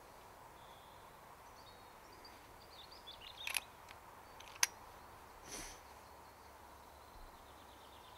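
Quiet woodland ambience with small birds chirping softly. A sharp click comes about three and a half seconds in, and a louder, sharper one about a second later. A brief noisy swish follows near the six-second mark.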